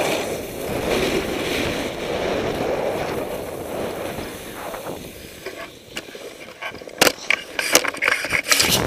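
Snowboard sliding and scraping over packed snow, with wind on the microphone, a steady rushing that fades about five seconds in as the board slows. Near the end comes a run of sharp knocks and clicks.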